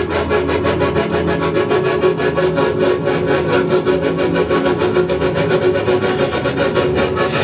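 Live electronic noise music played from a laptop: a loud, grinding, rasping texture pulsing rapidly, several times a second, over steady held tones.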